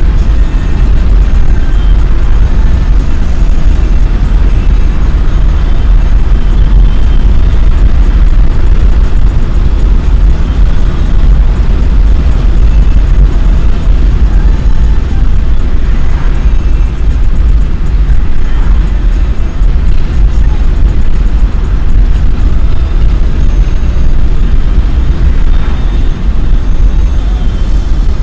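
Car driving: a loud, steady, deep road-and-engine rumble.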